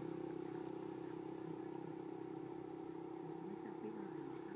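Steady low engine drone of an idling motor, even and unbroken.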